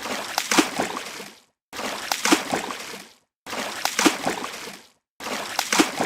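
A water splash repeating as an identical loop: each splash starts suddenly, has a few sharp peaks, then dies away over about a second and a half, with full silence before the next. Three splashes play and a fourth begins just before the end.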